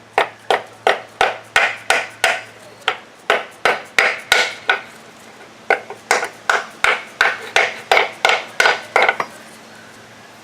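Hammer blows on a piece of scrap metal used in place of an oversized socket as a driver: about two dozen sharp, ringing strikes at roughly three a second, with a short pause midway, stopping about nine seconds in.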